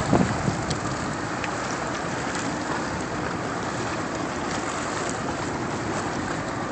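Steady wind and water noise on an open boat at sea, an even hiss with no distinct events.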